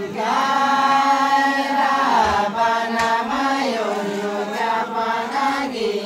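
A voice chanting a slow, drawn-out sung line, holding each note long and sliding to a new pitch a few times.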